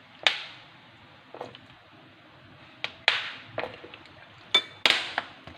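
Spoon and kitchen dishes clinking while sauce ingredients are measured out: several sharp knocks, each with a brief ring, the loudest a little past halfway.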